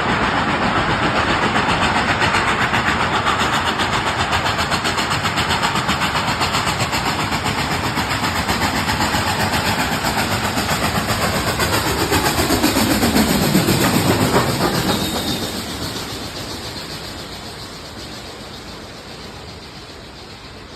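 Steam locomotive chuffing rapidly, with steam hissing. About two-thirds of the way through the sound drops in pitch, then fades away.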